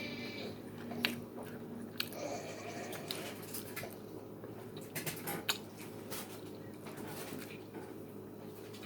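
A person chewing a soft chili cheese dog close to the microphone, with scattered wet mouth clicks.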